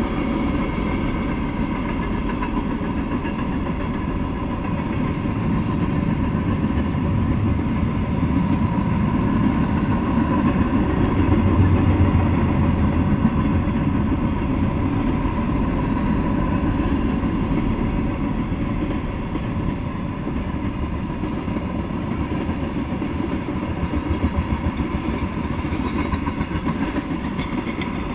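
Freight train of covered hopper cars and tank cars rolling past, a steady rumble of the cars running over the rails that swells a little around the middle.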